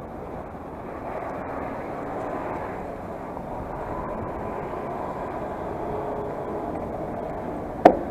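Muffled hum of road traffic, steady throughout, with a single sharp knock just before the end.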